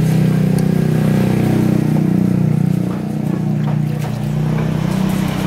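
An engine idling steadily nearby, a loud, even low hum.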